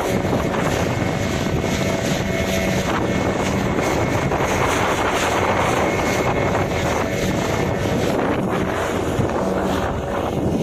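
Boat engine running steadily at high speed, its hum mixed with a loud rush of water past the hull and wind on the microphone.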